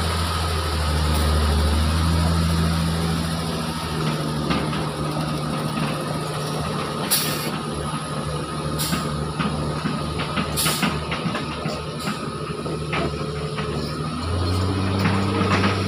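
Diesel engine of a log-laden logging truck running as it drives away up a dirt track, a steady low drone that grows weaker after about four seconds. A few sharp clacks sound in the middle, and a stronger low engine drone comes in near the end.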